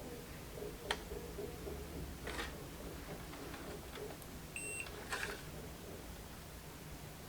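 A multimeter's single short electronic beep about four and a half seconds in, among a few light clicks and handling noises as the meter probes are worked on the board.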